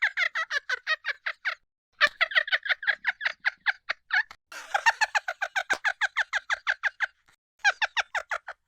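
A person laughing in fast, staccato runs of about eight "ha"s a second, in four bursts with short breaths between them, stopping just before the end.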